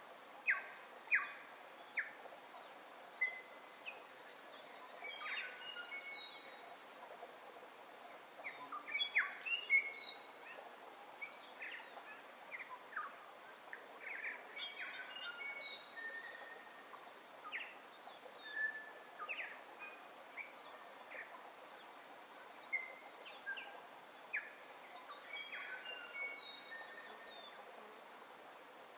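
Birds chirping and calling: many short chirps and brief whistled notes, some louder ones near the start and around ten seconds in, over a steady background hiss.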